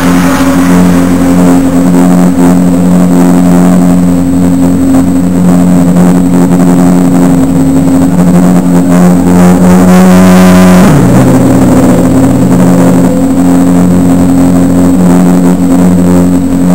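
Race car engine running steadily at a fast idle, close and loud. Its pitch rises slightly, then dips and recovers about two-thirds of the way through.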